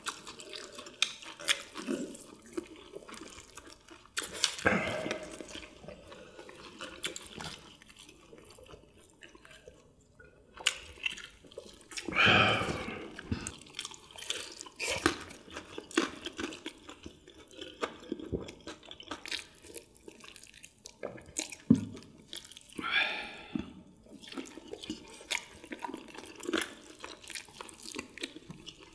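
Close-miked eating sounds from several people: wet chewing and lip smacks on fried chicken and battered fried squid, many short clicks in quick irregular succession, with a few louder, breathy sounds.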